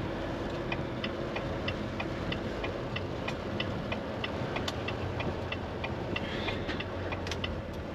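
Semi-truck's turn-signal indicator ticking evenly, a few ticks a second, over the steady low hum of the truck's engine in the cab: the driver is signalling a turn.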